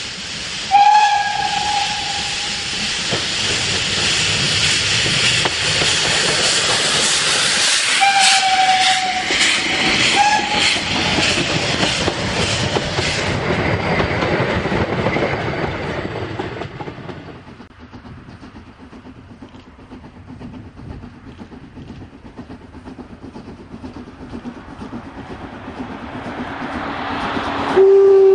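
Narrow-gauge steam locomotive passing under heavy steam: its whistle blows about a second in and twice more, briefly, around eight and ten seconds, over loud chuffing exhaust and hiss. The train then rolls by more quietly with rail clatter. Near the end a lower-pitched steam whistle sounds.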